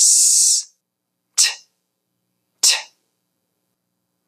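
A voice saying phonics letter sounds: a hissed 's' held for under a second, then two short, breathy 't' sounds, about one and a half and nearly three seconds in.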